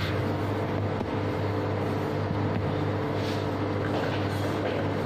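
Steady mechanical hum of bakery kitchen machinery, with a few low held tones, and faint soft rubbing of dough being rolled by hand on a steel table.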